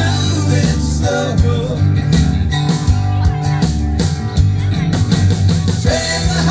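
Live band playing an instrumental break of a country song: electric guitar lead over bass and a steady drum beat.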